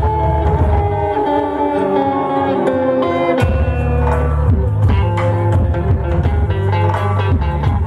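A rock band playing live, with electric guitar lines over bass and drums. The low end drops away for a moment and comes back in with a drum hit about halfway through.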